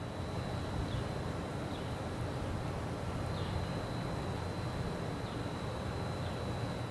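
Outdoor ambience: a steady low rumbling noise with a thin steady high tone and a few faint bird chirps.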